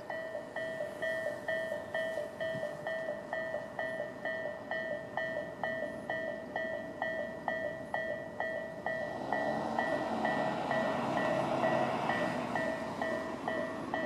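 Electronic level-crossing warning bell of the Tobu 'sound A' type ringing steadily at about two strikes a second. From about nine seconds in, the noise of an approaching Tobu 20400-series electric train swells beneath the bell, then eases off near the end.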